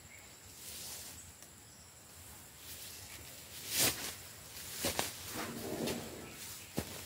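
Sri Lankan wild elephant tearing leafy branches from a tree with its trunk. Leaves rustle and twigs crack, loudest about four seconds in, with another crack about a second later, more rustling, and a sharp snap near the end.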